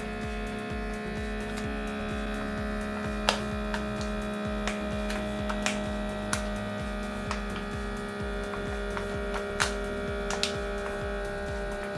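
Battery-powered mini vacuum pump running steadily on a reusable vacuum bag's one-way valve, a constant electric motor hum as it evacuates the air. Scattered sharp crackles come from the bag's plastic drawing in around the filament spool.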